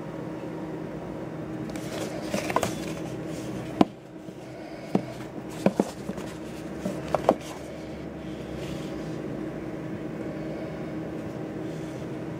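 A cardboard phone box being opened and its card insert handled on a wooden table: a string of short taps and knocks, the sharpest about four seconds in, over a steady low hum.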